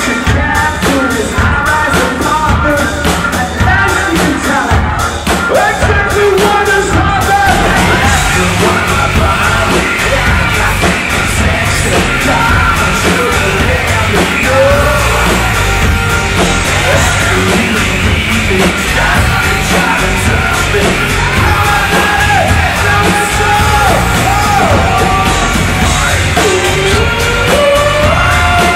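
Live industrial rock band playing loud, with yelled vocals over a driving drum beat.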